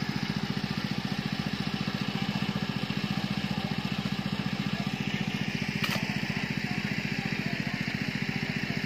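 A small engine running steadily with a rapid, even pulse. A single sharp click sounds about six seconds in.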